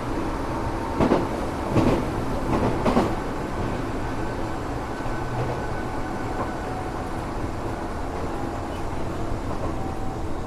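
A Tokyo Metro 7000 series armature-chopper electric train running steadily, heard from on board, with faint high tones over the running rumble. About one to three seconds in come four sharp wheel clacks over the rail.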